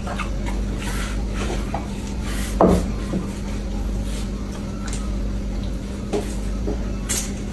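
Noodle eating: scattered short slurps and light clicks of tableware, with one louder knock about two and a half seconds in, over a steady low hum.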